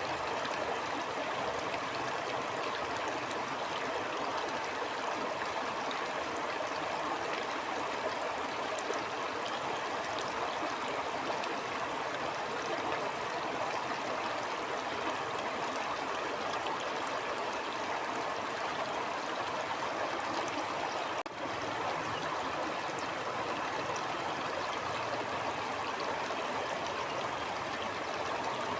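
Stream flowing, a steady even rush of water, with a momentary dip in level about two-thirds of the way through.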